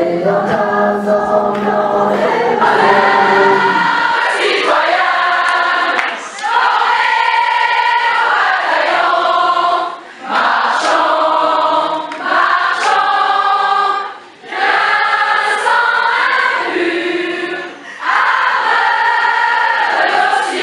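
Many voices singing a song together in sung phrases, with short breaks between the lines.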